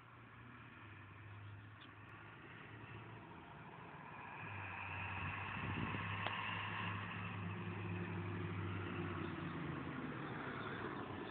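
A school bus engine running as the bus approaches and drives past: a steady low engine hum that grows louder about four seconds in and stays loud as the bus goes by.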